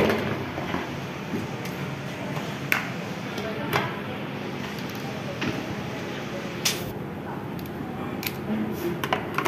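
Plastic baby-bottle parts and a plastic bottle rack being handled, giving a few sharp separate clicks and knocks over a steady low background.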